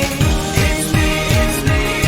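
Background pop music with a steady kick-drum beat and sustained synth chords, in a break between the sung lines.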